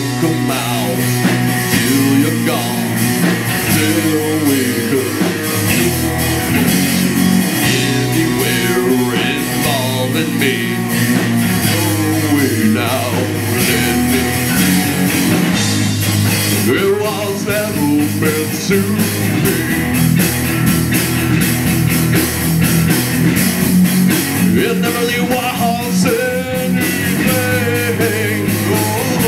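Live rock band playing loud, with guitar and drum kit under a man singing into the microphone.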